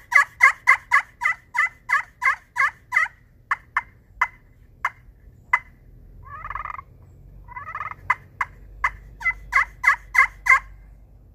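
Friction turkey pot call with an aluminum playing surface, worked with a snakewood-topped solid-acrylic striker: a quick run of yelps, about three a second, then spaced single clucks, two short rattling purrs around the middle, and another fast run of yelps near the end.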